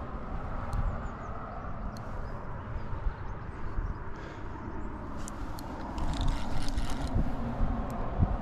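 Wind buffeting the microphone as a steady low rumble, with scattered light clicks from rod and reel handling while a hooked fish is played, and a denser run of clicks between six and seven seconds in.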